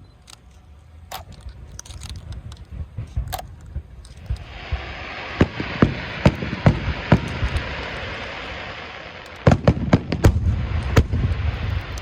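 Aerial fireworks bursting: scattered pops at first, then from about four seconds in a continuous dense crackle with sharp bangs over it, and a quick run of loud bangs near the end.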